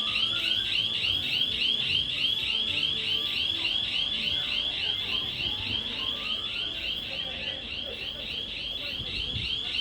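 Shop panic alarm sounding continuously: a high electronic tone that warbles up and down about five times a second.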